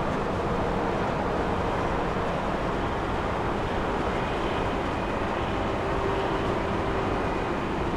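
Steady rumble and hiss of an Airbus A330-300 airliner's jet engines, with a faint whine coming in about halfway through.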